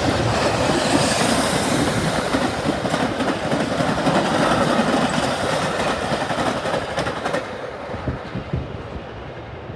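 Metra express commuter train passing through at speed without stopping, its bilevel passenger cars going by close with a run of wheel clacks over the rail joints. The sound fades over the last couple of seconds as the train pulls away.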